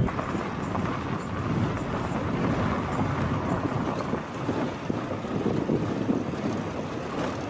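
Steady rushing noise of wind on the microphone.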